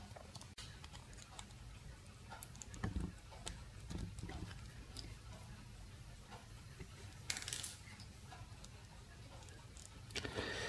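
Small plastic parts of a glucometer's optical sensor housing handled and pried apart by hand: faint scattered clicks and taps, with a short scrape about seven seconds in and another near the end.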